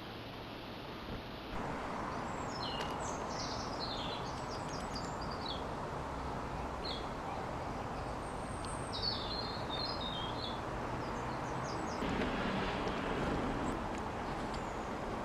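A small songbird singing two short bursts of quick, high, twittering phrases over a steady background hum of outdoor city noise.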